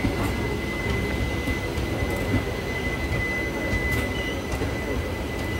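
Express train moving on the rails: a low wheel rumble with a steady high-pitched wheel squeal that is loudest about two to four seconds in.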